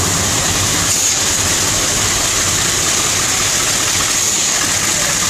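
Small diesel shunting locomotive's engine idling steadily, with a constant low hum.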